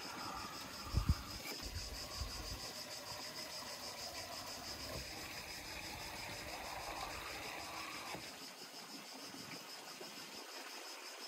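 Crickets chirping in a steady, evenly pulsing trill, with a couple of short dull knocks about a second in from a knife cutting pastry on a wooden board.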